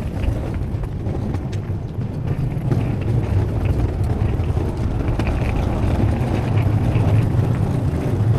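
Steady low rumble of street noise on a handheld camera's microphone while walking along a city sidewalk, with passing traffic and wind on the mic.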